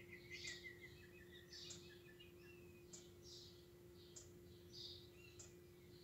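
Faint Webasto diesel parking heater starting up: a steady blower hum with a soft tick repeating evenly about every 1.2 seconds, the fuel dosing pump metering diesel. Small birds chirp and twitter over it.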